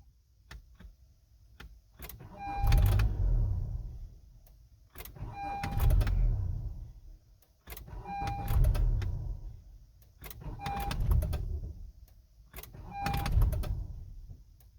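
2015 Honda CR-V being started again and again as a torture test for an intermittent no-start: five short bursts of starter cranking and the engine catching, each cut off again, about two and a half seconds apart, each opening with a brief beep.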